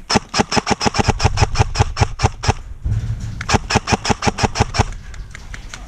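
Airsoft gun firing two bursts of rapid shots, about eight to ten a second, the first nearly three seconds long and the second just over one, with a low motor hum under each burst.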